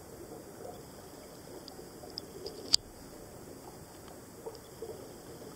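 Quiet room tone with faint handling noises as a small plastic animal figurine is turned in the fingers, and one sharp click near the middle.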